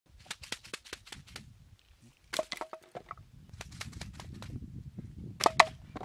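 Sharp clicks and knocks of a hard plastic crate, plastic bottles and bamboo sticks being handled. The loudest pair of knocks comes about five and a half seconds in, with a low rumble underneath through the middle.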